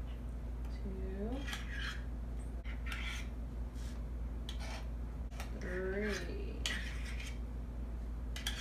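Metal measuring spoons scraping and tapping against a stainless-steel mixing bowl as thick yogurt is scooped and knocked off, in several short bursts. Two brief hummed vocal sounds come in about a second in and about six seconds in.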